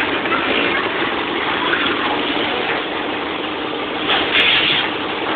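Steady engine-like machinery noise, with a brief louder burst about four seconds in.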